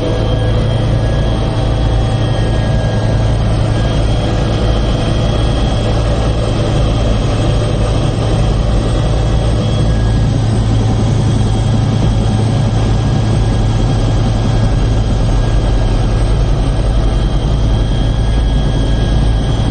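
Helicopter cabin noise in flight: the turbine engine and rotor running steadily with a deep constant drone and a thin high whine over it.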